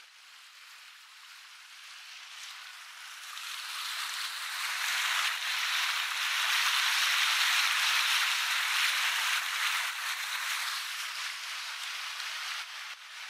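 Rushing hiss of water and wind from a small center-console boat under way. It grows louder about three seconds in, is loudest in the middle and eases off near the end.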